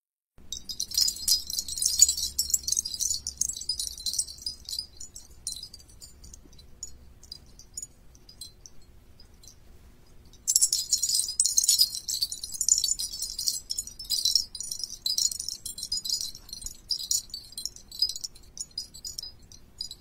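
Sparkle sound effect: a dense shimmer of tiny, high tinkling chimes. It starts about half a second in and thins out, then a second equally dense shimmer starts about halfway through.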